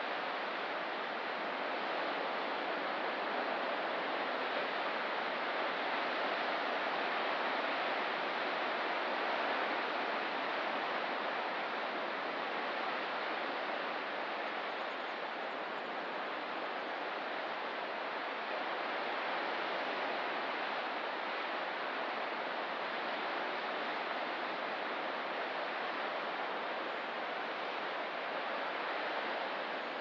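Steady rushing of water, an even hiss without separate wave breaks or other distinct sounds.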